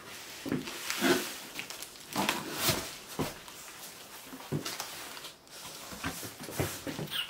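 Cardboard boxes rubbing and scraping together in irregular scuffs as an inner box is worked out of its outer shipping carton.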